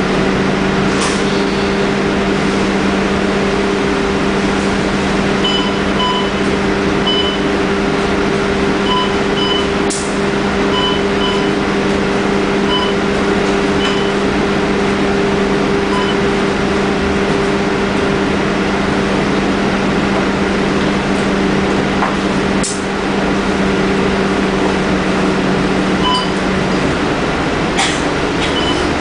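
Cabin sound of a Scania K310UD double-decker bus idling at a stop: a steady hum that cuts off shortly before the end. Over it come short, irregular electronic beeps from the fare card readers as passengers board, and a few sharp clicks.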